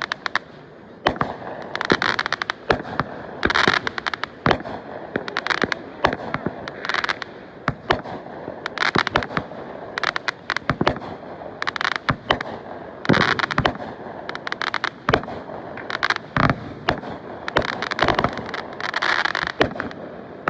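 Fireworks going off in quick succession: many sharp bangs, with bursts of crackling every few seconds.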